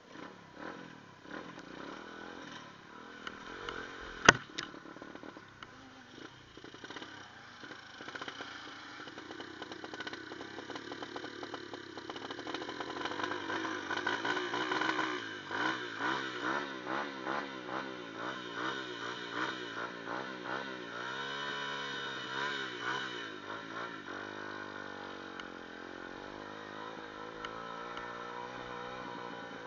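Dirt bike engine running and revving up and down, its pitch wavering quickly as it goes over rough ground, getting louder about twelve seconds in. A single sharp knock about four seconds in.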